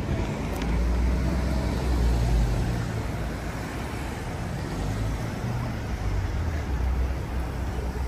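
Road traffic passing along a busy street: a steady low rumble of engines and tyres that swells and fades as vehicles go by.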